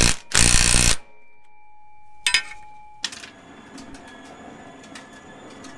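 Socket ratchet clicking through one last quick pass as it tightens a driveshaft flange bolt at the rear differential, then stopping. After it, a faint steady tone with a single sharp click, then a low hiss with light ticks.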